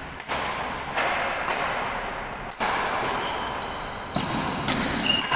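Badminton rally: sharp racket hits on a shuttlecock, about seven in all and roughly a second apart, each ringing on in the hall. Short high sneaker squeaks on the court floor come in near the end.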